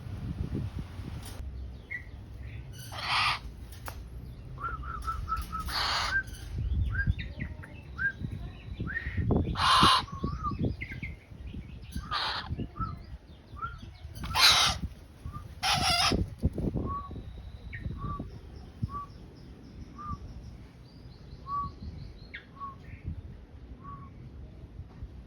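Birds: several short, loud bursts of wing flapping, then a run of short, evenly spaced calls, a little over one a second.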